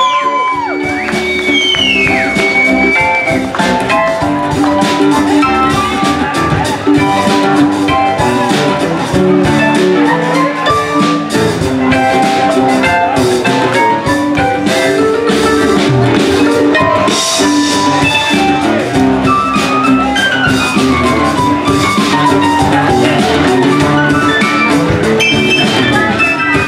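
Live band playing an instrumental passage of a song, with saxophone, keyboard, acoustic guitar, bass guitar and drum kit, with no singing.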